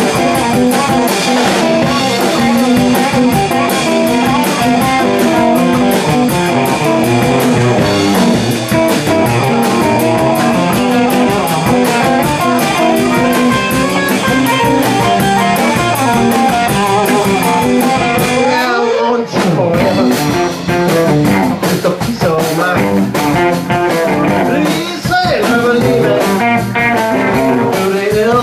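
Live blues-rock band playing loudly: two electric guitars, electric bass and a drum kit. About two-thirds of the way through the bass and drums drop out for a moment and the band comes back in on a new groove.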